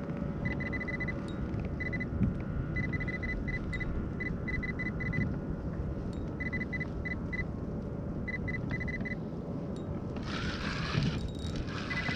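Short high electronic beeps in quick runs of two to six, coming every second or so until about nine seconds in, over a steady low rumble of wind and water. Near the end a rushing hiss comes in.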